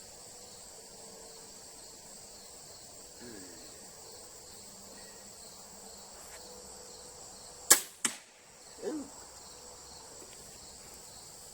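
An arrow shot: a sharp snap of the release, then a second crack less than half a second later as the arrow strikes the target, followed by a short, softer sound about a second on. Crickets and insects chirr steadily underneath.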